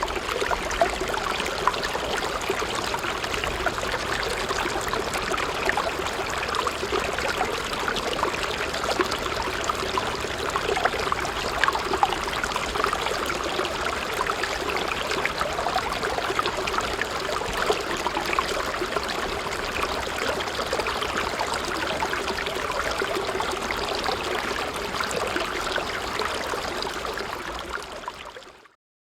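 Water pouring and trickling steadily from a small water pump's outlet. It splashes continuously and cuts off suddenly near the end.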